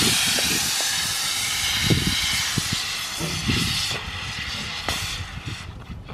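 Diet Coke and Mentos eruption: carbonated soda hissing as it foams and sprays out of the neck of a 2-litre bottle held under the hands, the hiss loudest at the start and slowly dying away over the next few seconds.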